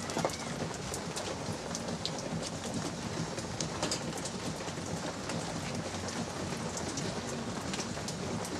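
Light drizzle falling steadily, with scattered drips tapping.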